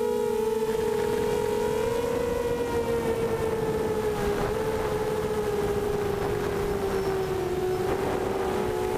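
A quadcopter's four brushless motors (SunnySky 2300kv) and 5x3 propellers whine steadily in flight. The pitch rises slightly, sags gradually, then lifts again as the throttle changes.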